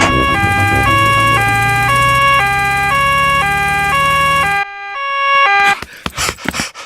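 Cartoon emergency-vehicle two-tone siren ("nee-naw"), switching between a high and a low note about every half second over a low engine hum. It cuts off sharply about two-thirds of the way through, sounds again briefly, then stops, followed by a few short knocks.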